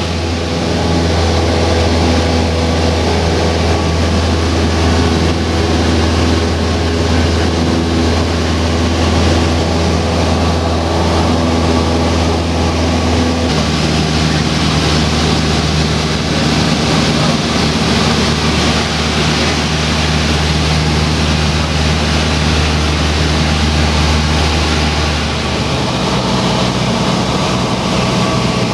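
Cessna 172 Skyhawk's four-cylinder piston engine droning steadily in flight, heard from inside the cabin. Its pitch shifts abruptly about halfway through and again near the end.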